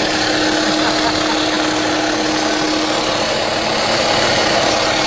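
Electric food processor running steadily at full speed, grinding almonds and amaretti biscuits into a coarse meal.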